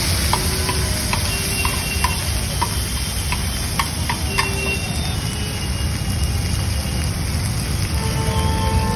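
Metal spatula tapping and scraping on a large flat tawa while tomatoes are stirred in oil. There are sharp clinks about twice a second for the first few seconds, over a steady low rumble of traffic.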